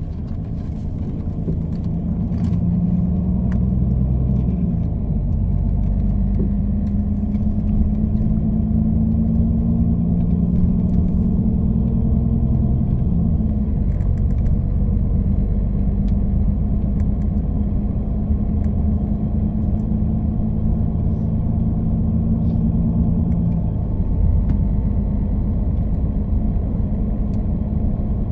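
Engine drone and road rumble inside a moving VDL Futura coach. The rumble is low and steady, and the engine's pitch shifts a few times as the coach's speed changes. It grows louder over the first few seconds.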